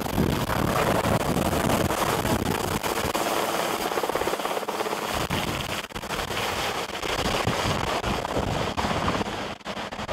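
Sikorsky VH-3 Sea King helicopter lifting off and climbing away. Its turbines and rotor make a steady loud rush with a fast, even rotor chop, and the deep rumble thins out a few seconds in as it pulls away.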